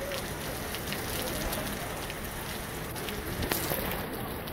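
Steady rain falling, an even hiss dotted with the ticks of drops striking close by, one a little louder about three and a half seconds in.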